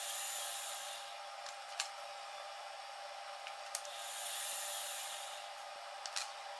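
Belt-driven dynamic balancing machine spinning a lightened VAZ crankshaft with its flywheel on a measuring run to read its unbalance: a steady whirring hiss over a faint steady hum, swelling twice, with a few sharp clicks. The shaft comes to a stop near the end.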